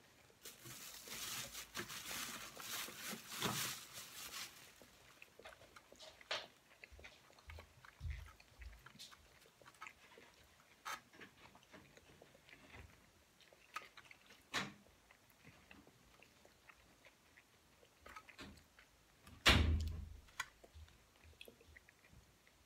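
Close chewing of sushi rolls, with small clicks of chopsticks and utensils and a rustling stretch in the first few seconds. One louder thump, like something set down on the table, comes about three-quarters of the way through.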